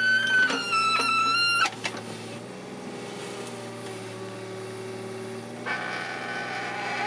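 Mini excavator running as its bucket digs into the soil, the diesel engine holding a steady hum with high hydraulic whines that hold level for the first second and a half, fade, and come back strongly near the end.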